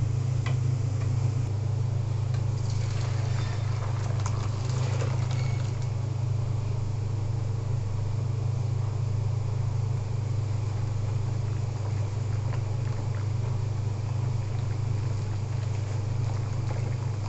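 Steady low hum, with a wooden dal masher working boiling red lentils in an aluminium pot, scraping and sloshing most clearly between about two and five seconds in.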